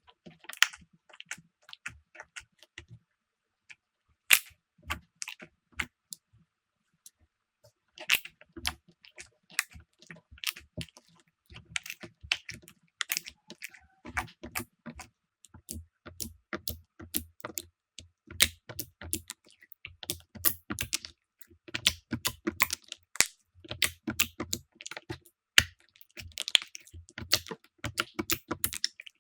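Slime being squeezed and poked by hand, giving many quick, irregular clicks and pops. They are sparse at first, stop briefly, then come thick and fast.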